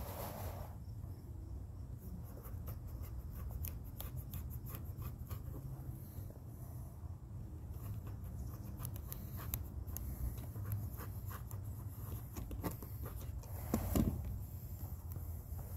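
Light scratching and small ticking sounds of hand work on leather for an axe sheath, over a steady low hum, with one louder knock about 14 seconds in.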